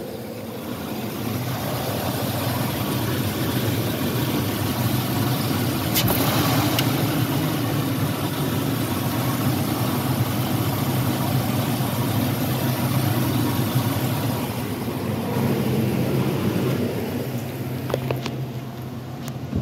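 GM Vortec engine of a pickup truck idling steadily, with two brief sharp clicks about six seconds in and near the end.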